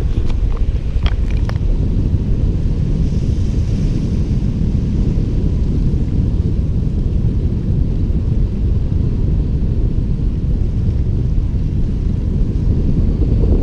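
Wind buffeting the microphone in a steady low rumble, with surf washing against granite shore rocks beneath it.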